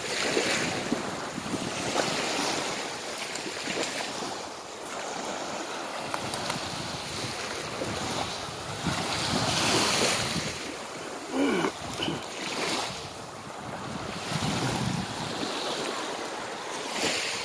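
Small waves breaking and washing over a pebble beach, the surf swelling and falling back, with wind buffeting the microphone.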